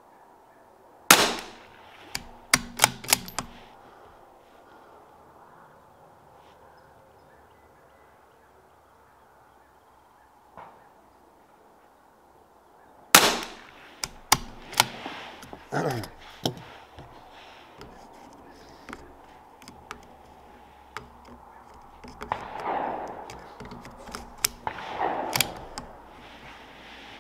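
Two shots from a CZ 457 AT-ONE bolt-action .22 LR rifle, about twelve seconds apart. Each shot is followed within a couple of seconds by a quick run of clicks as the bolt is worked to eject the case and chamber the next round.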